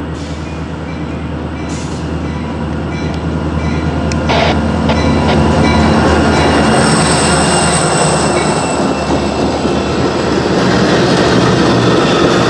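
CSX GP40-2 diesel locomotive's turbocharged V16 engine approaching and passing close by, the drone growing louder until it draws level about five seconds in. Then come the wheels of its passenger-style cars rolling over the rails, with a few sharp clicks and a thin high whine in the middle.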